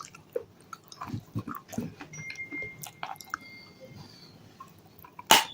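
Dry baked clay being crunched: scattered small crackles and crumbling, then one sharp, loud crack just before the end.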